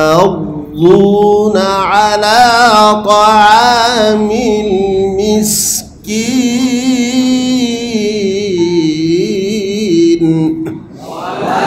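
A man reciting the Quran in the melodic chanted style of tajwid: long held notes that waver and curl, sung in long phrases with short breath pauses about a second in and again near six seconds.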